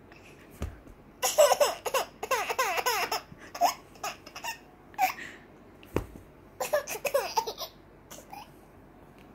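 Baby laughing hard in repeated bursts of quick giggles, with the longest runs about a second in and around seven seconds in. Two dull thumps come, one about half a second in and one near six seconds.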